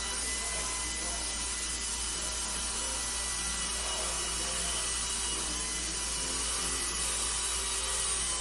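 Dental equipment running steadily in a treatment room: a continuous hiss with a faint, high-pitched whine held on a few steady tones over a low hum.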